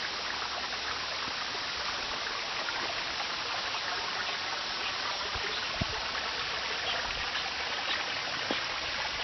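Running water of a bush stream, a steady even rush.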